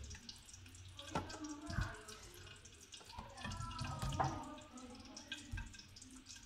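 Wet raw chicken pieces being set down one after another into a plastic basket, with several soft wet thuds and liquid dripping and splashing.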